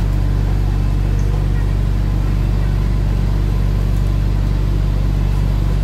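Steady low drone of an airport apron shuttle bus's engine, heard from inside the bus cabin, holding an even pitch with no revving.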